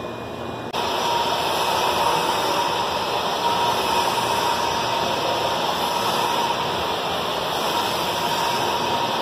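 Steady rushing noise with a faint high hum, starting abruptly under a second in and cutting off abruptly at the end, with no knocks or clatter from the rings.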